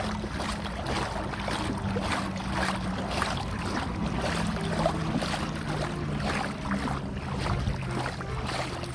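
Stream water splashing and lapping irregularly as a trout swims and thrashes inside a hand-held scoop net in shallow water.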